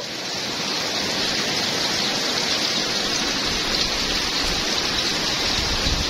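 Rainstorm: heavy rain pouring down steadily, an even hiss of falling drops, with low gusty rumbling joining from about halfway through.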